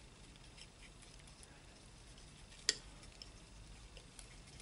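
Faint taps and soft scraping of a metal palette knife mixing paint on a palette, with one sharper click a little under three seconds in.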